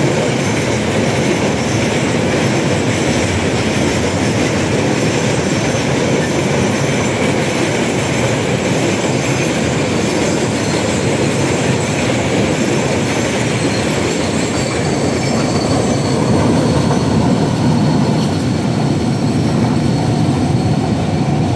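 A train of empty railway oil tank wagons rolling past, a steady rumble of steel wheels on the rails with a thin wheel squeal above it. The sound grows duller as the end of the train draws away near the end.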